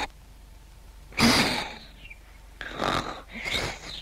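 Cartoon sound effects of a character being gassed with ether from a rubber-bulb sprayer: a loud hissing burst about a second in, then two shorter puffs near the end.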